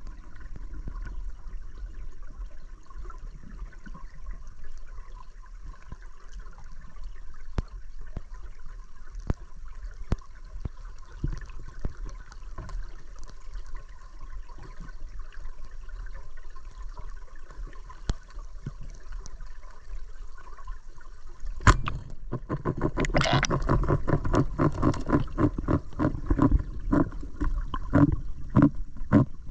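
Underwater sound of murky river water picked up by a submerged action camera: a low steady rumble with scattered faint clicks, then a sharp crack about 22 seconds in, followed by louder, irregular bubbling and water churning.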